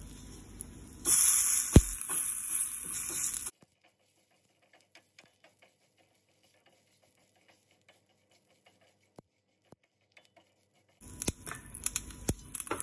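Tempering spices (curry leaves, methi seeds, cumin and mustard seeds) frying in hot ghee and oil in a small steel pan. A loud hiss of sizzling starts about a second in and cuts off suddenly a couple of seconds later. After near silence, crackling and popping starts near the end as the mustard seeds begin to splutter.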